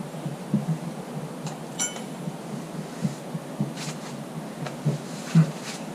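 Irregular soft thumps of casting sand being packed into a mould flask, with one short metallic clink about two seconds in and the hardest thump near the end.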